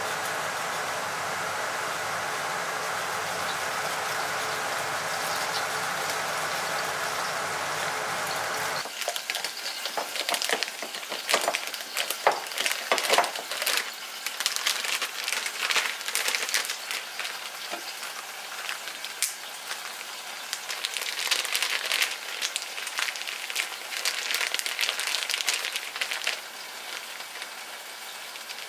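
A steady hiss, then after about nine seconds a sudden change to crackling and rustling plastic: a plastic bag crinkling and squishing as curry marinade is worked into chicken.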